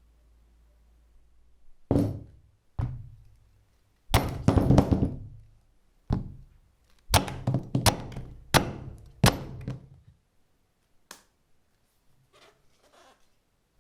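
A heavy cleaver chopping down onto a wooden surface: a dozen or so irregular thunks with a loud cluster of strikes, then a few fainter ones near the end.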